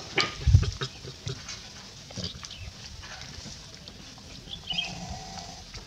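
Macaques calling briefly: a short high squeak and a short held low call near the end, among scattered clicks and rustles. A dull thump about half a second in is the loudest sound.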